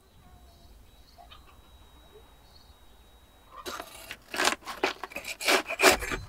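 Long metal tandoor rods scraping and knocking against the hot clay wall and crusty bread as baked flatbreads are prised off, a run of loud rasping strokes starting about halfway through. Before that, only faint bird chirps.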